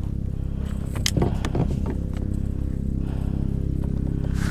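A flounder being handled out of a landing net on a kayak: clicking and rattling of net, lure and hooks, busiest about a second in, with a brief scrape near the end, over a steady low motor hum.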